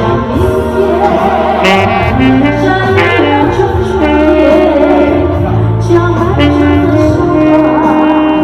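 Live band playing a slow, jazzy song through a PA: a woman singing over keyboard, saxophone and bass.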